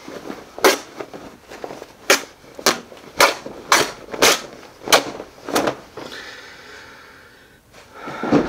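A pair of pants being torn apart by hand: a series of about nine sharp rips, roughly two a second, then a quieter, drawn-out rasp of fabric.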